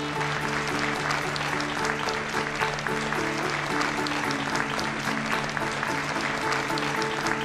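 An audience applauding over background music that holds long, steady notes.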